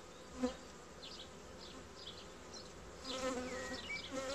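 Buckfast honeybees buzzing around an opened hive. A single bee buzzes close past briefly about half a second in, and another buzzes close and louder from about three seconds in.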